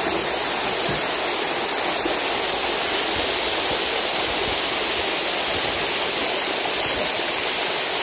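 Waterfall of many strands pouring down a mossy cliff, heard from close beneath as a steady rush of water.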